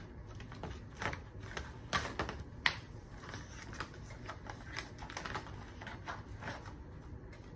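A foil-lined freeze-dried meal pouch being torn open and crinkled: a run of sharp crackling clicks, loudest about two to three seconds in, then softer crinkling as the pouch is pulled open.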